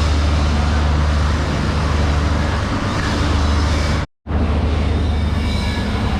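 An engine running steadily with a low, even hum, cutting out completely for a split second about four seconds in.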